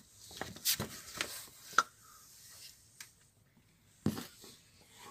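A handful of short rustles and scrapes, with a sharp click a little under two seconds in and another knock about four seconds in.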